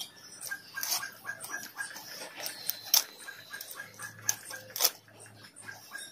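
Snakehead fish being cut and scraped on a boti blade: a few sharp scraping, crunching strokes, the loudest about three seconds in and just before five seconds, over a fast, steady ticking in the background.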